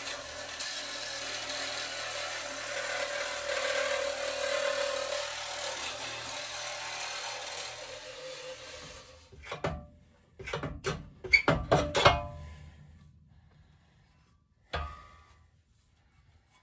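A power tool runs steadily for about eight seconds, then stops, followed by a quick series of sharp metallic knocks and one more knock near the end.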